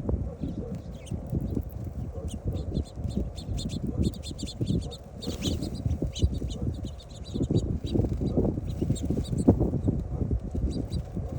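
Birds chirping: many short, high chirps repeated throughout, over a continual low rumbling with knocks.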